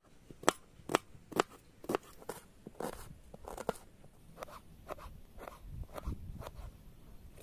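Kitchen knife cutting a red onion and then tomatoes on a plastic cutting board: sharp knocks of the blade on the board about twice a second, followed by softer, uneven slicing cuts.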